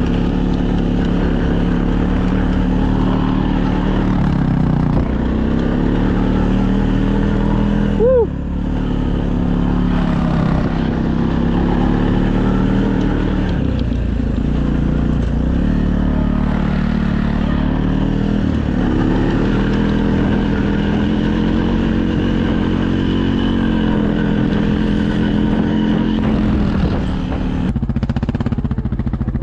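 Off-road vehicle's engine running continuously, its pitch rising and falling as the throttle changes while it tows a rider through snow. A single shout of "woo" comes about eight seconds in.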